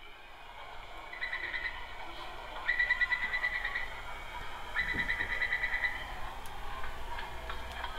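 Three pulsing animal trills, each lasting about a second, over a steady low background hum.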